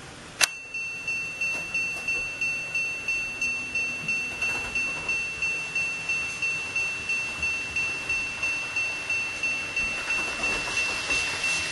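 N-gauge model level crossing's electronic warning bell switching on with a click and ringing steadily, about two and a half strikes a second, signalling that a train is approaching the crossing.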